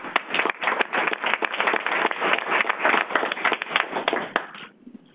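Audience applauding, a dense patter of many hands clapping that dies away about four and a half seconds in.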